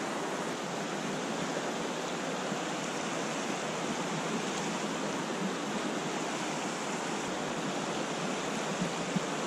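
River rapids rushing steadily: fast water running over stones.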